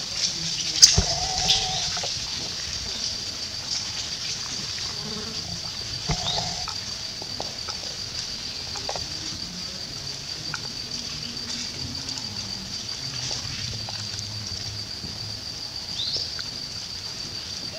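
Steady high-pitched insect drone, with a few short high calls and a sharp click about a second in.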